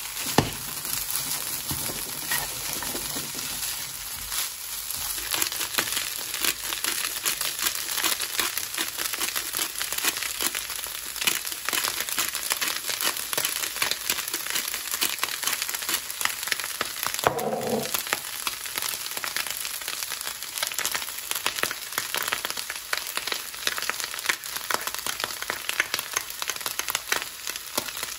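Fried rice with egg and vegetables sizzling and crackling in a hot nonstick pan, with the rustle and scrape of a spatula stirring and tossing the rice.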